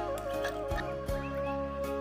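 Background music: a held, flute-like melody over a low beat.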